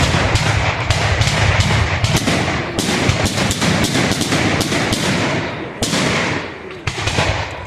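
Fireworks going off in a rapid barrage of overlapping bangs and cracks, dying away near the end.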